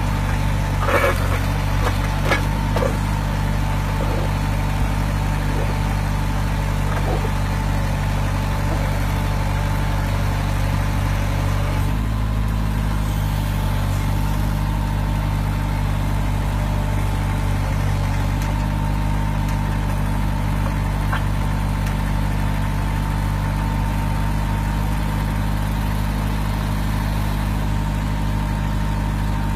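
Engine of a SoloTrak tracked post driver running steadily, with a steady high whine over it. A few short clanks come in the first few seconds, and the engine note shifts slightly about twelve seconds in.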